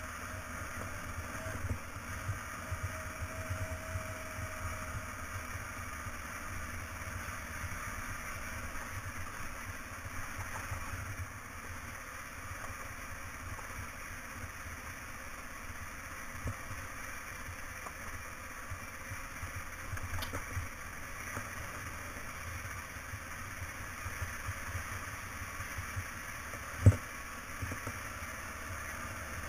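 Motorcycle riding along a gravel road: steady engine and road noise throughout, with one sharp knock near the end.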